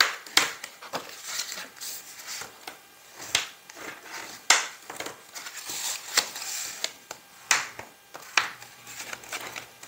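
Red cardstock being folded along its score lines and creased with a bone folder: rustling and sliding paper with a string of short, sharp taps and scrapes, about eight standing out.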